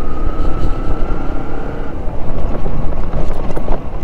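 Motorcycle engine running under way on a rough dirt track, with heavy road and wind rumble. A thin whine fades out about halfway through, and a few short clatters come in the second half.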